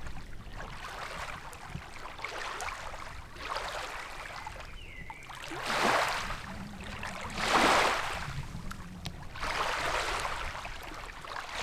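Small lake waves lapping against the shore, the splashes coming in soft swells every second or two.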